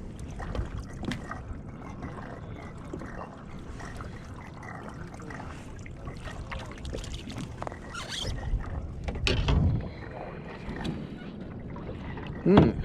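Scattered knocks and clatter on a plastic fishing kayak as a freshly landed snapper is handled, over a steady wash of water and wind. A short voice sound comes near the end.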